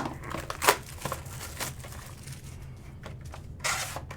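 Trading card packaging being opened by hand: a couple of sharp clicks, crinkling, and a short rustle near the end.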